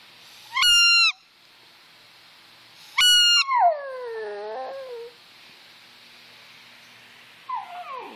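A squeaky toy gives two high, steady squeaks, and right after the second a Yorkshire terrier howls, its voice sliding down in pitch for about a second and a half. Near the end the dog gives a shorter howl that falls away.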